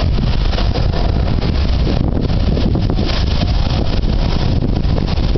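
Heavy surf breaking and a sea blowhole spouting seawater, under strong wind buffeting the microphone: a steady, loud rushing noise with a heavy low rumble.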